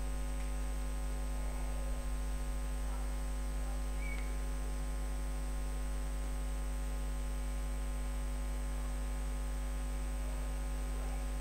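Steady electrical mains hum on the recording: a low, unchanging buzz with its overtones, and nothing else of note.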